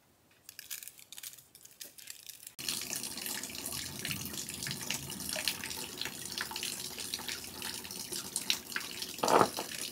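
Water running from a bamboo pipe spout into a stone basin, a steady splashing trickle with drips, which starts abruptly about two and a half seconds in after a few light clicks and rustles. A brief louder sound near the end.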